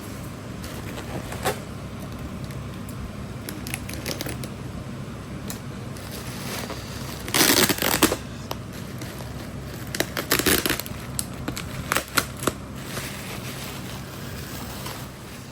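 Packaging being handled and pulled apart: scattered clicks and short bursts of rustling and crinkling, the loudest a second-long burst about seven seconds in and more around ten and twelve seconds, over a steady low hum.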